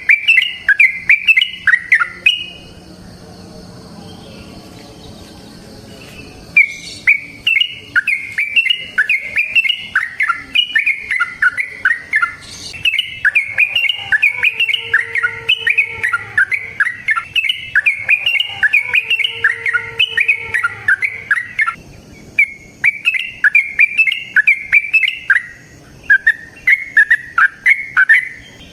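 Yellow-vented bulbul (trucukan) singing its long, rapid, bubbly warbling song, stopping for about four seconds near the start and briefly again near the end.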